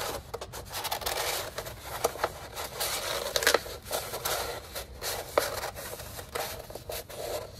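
A sheet of heavyweight construction paper being rolled by hand into a cone: rustling and scraping with frequent sharp crackles as the paper slides and bends on itself.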